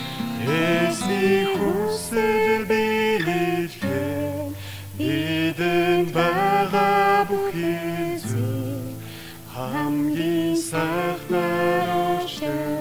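A hymn sung in Mongolian by a woman into a microphone, with acoustic guitar accompaniment. She sings phrase by phrase with held notes, with a short pause between phrases about nine seconds in.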